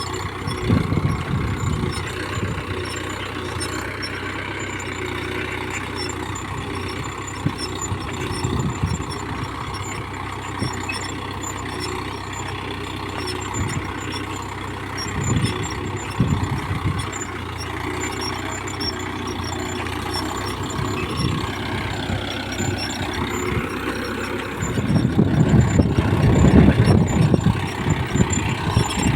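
Mahindra Yuvo 415 DI tractor's four-cylinder diesel engine running steadily while pulling a two-bottom reversible plough through hard soil. It grows louder for a few seconds near the end.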